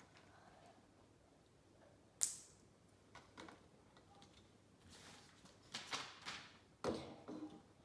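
Lego pieces being handled and snapped together: a sharp plastic click about two seconds in, then a spell of rustling and clattering of pieces with another click near the end.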